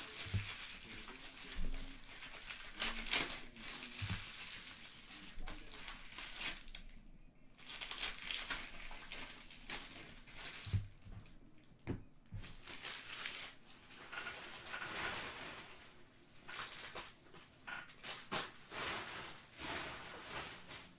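Hands crumpling and scrunching white wrapping: rustling and crinkling in stretches, broken by brief pauses.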